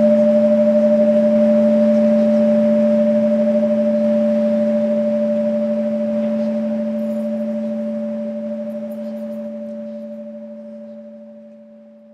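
A sustained musical drone of two held notes, one low and one higher, steady in pitch and slowly fading away over the last few seconds.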